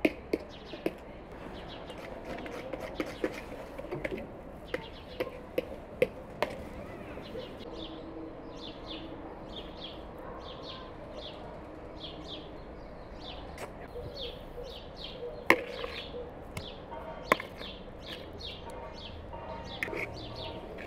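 Small birds chirping in quick repeated short notes, starting about eight seconds in, over scattered sharp taps and knocks, two of them louder in the second half.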